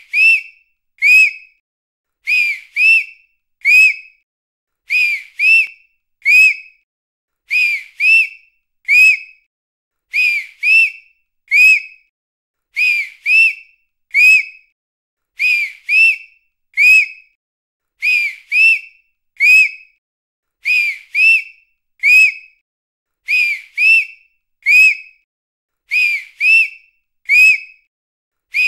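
A high-pitched whistle blown in short blasts, in groups of three: two quick blasts and a third a little after. The group repeats steadily about every two and a half seconds, and each blast bends briefly up and then down in pitch.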